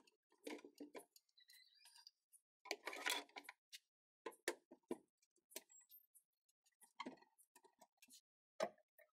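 Faint handling sounds from a steel oil-drum tool cabinet as its wooden tool rack is turned and its curved metal door is shut and latched. Scattered taps and knocks, a longer scrape about three seconds in, and a few sharp clicks around seven seconds, as at the latch.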